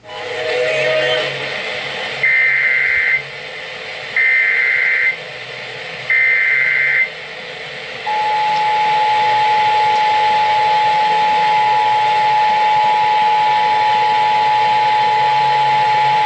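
Emergency Alert System alert received over the radio, under a background hiss: three one-second bursts of SAME header data, each a harsh two-tone screech, then a steady EAS attention tone that starts about eight seconds in and holds.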